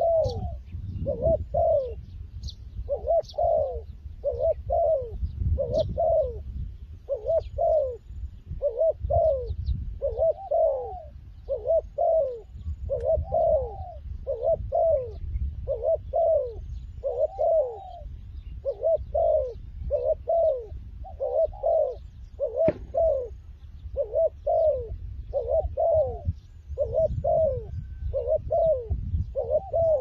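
Spotted dove cooing continuously: a steady run of short coos, often in pairs, about two a second, each falling slightly in pitch.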